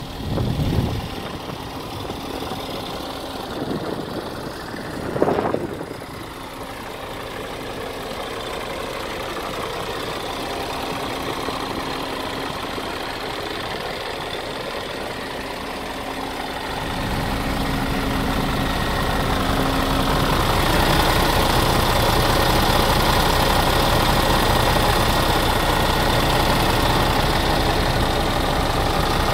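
Scania R450 tractor unit's 13-litre straight-six diesel idling steadily, with a diesel knock. It gets louder past the middle as the sound comes from closer behind the cab, and there are two brief thuds in the first few seconds.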